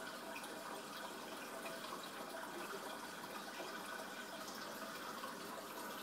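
Aquarium filter water running and splashing steadily, with small scattered drips or bubble pops.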